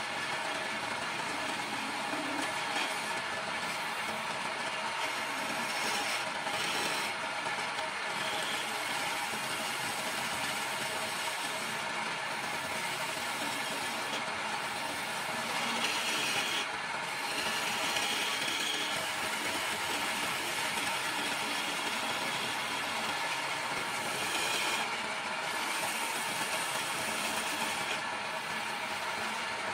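Electric-motor-driven wood lathe running while a hand-held gouge cuts the spinning wood: a steady scraping hiss of tool on wood over the motor's hum, brightening several times during harder cuts.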